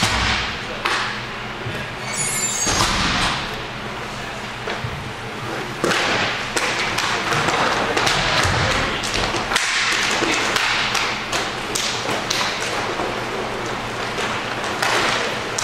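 Inline hockey play: sticks and puck knocking, with repeated sharp clacks and thuds as the puck hits sticks and the rink boards.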